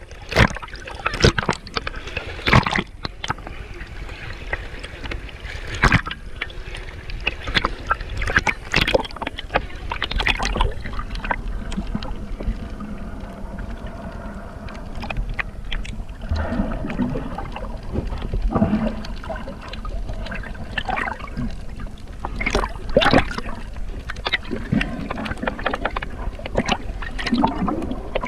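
Water splashing and sloshing, with irregular knocks and splashes over a steady low rumble.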